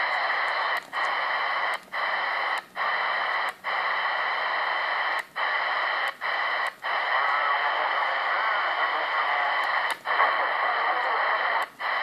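Targa 77-099 CB radio's speaker hissing with open-squelch static while the channel is stepped upward. The hiss cuts out briefly again and again, once for each channel change.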